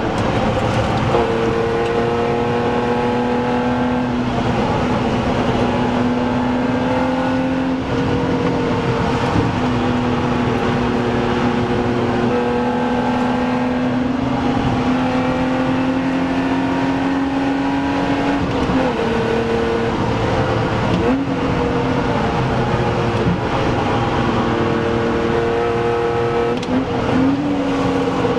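BMW Z3 2.8 Coupé's straight-six engine running hard at speed, heard from inside the cabin over tyre and wind noise. Its note climbs slowly under load, then dips briefly a few times in the latter part before picking up again.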